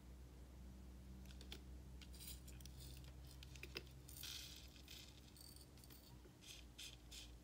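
Faint clicks and light rattling of small nail-art crystals and tools being handled on a tabletop, with a short soft brushing sound about four seconds in and a quick run of clicks near the end.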